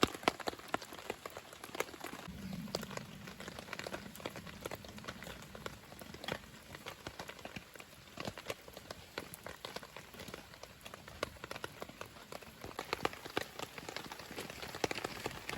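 Wood campfire crackling, with pork and chicken sizzling over it: dense, irregular sharp pops and crackles over a steady hiss.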